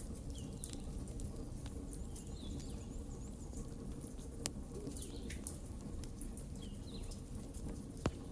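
Wood fire crackling, with sharp pops a little past halfway and again near the end, while small birds chirp repeatedly in the background.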